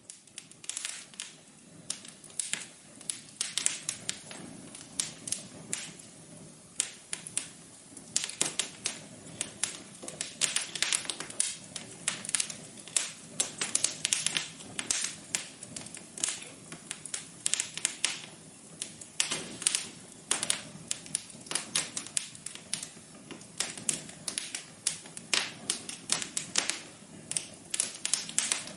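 Wood fire crackling in a fireplace: irregular snaps and pops, several a second and varying in loudness, over a soft steady rush of the burning fire.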